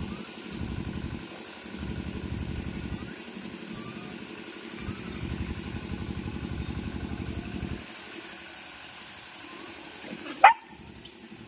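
A low rumble in uneven surges for the first eight seconds, then one sharp, loud animal yelp rising in pitch about ten and a half seconds in.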